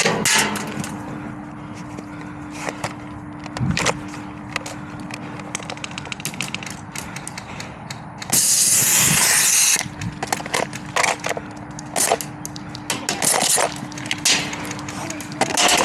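Airsoft skirmish noise: scattered sharp cracks and clacks of airsoft guns firing and BBs striking, over a steady low hum, with a loud hiss for about a second and a half midway.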